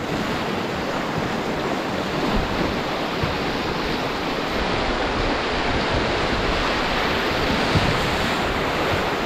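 Whitewater rapids rushing and churning around a canoe as it runs through them: a steady, loud wash of water noise.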